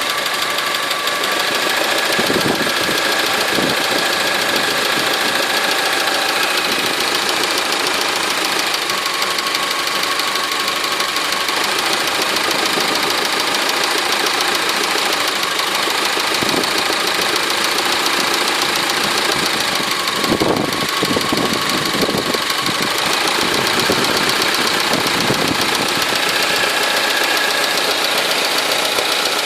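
Honda engine running with a knock in the motor, whose cause the owner is unsure of. A few stronger pulses stand out about two seconds in and again past the middle.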